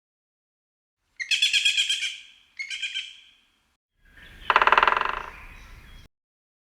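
Woodpecker calling: two quick, high rattling calls, then a longer, lower rattle of rapid pulses.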